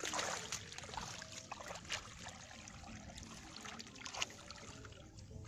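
Shallow muddy water sloshing and splashing as hands grope through it for fish, with a short splash about once a second over a steady trickle of water.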